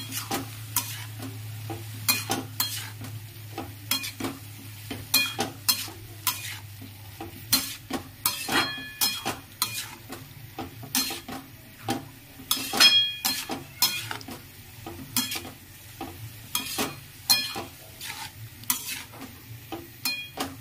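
Metal spatula scraping and clinking irregularly against an aluminium kadai as shredded cabbage and potatoes are stirred and tossed, with a low sizzle of frying underneath. A low hum fades out about a third of the way through.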